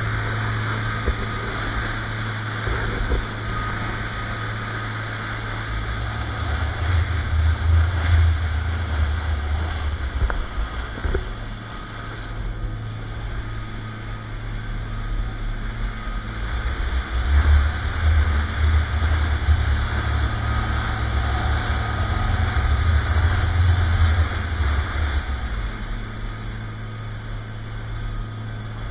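SeaVee center-console boat running fast over open water: a steady low engine drone under the rush of wake and spray. Wind buffets the microphone and swells twice into a louder rumble.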